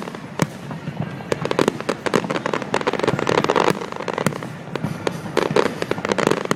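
Fireworks display: a dense run of sharp bangs and crackling bursts, several a second, over a continuous rumbling haze.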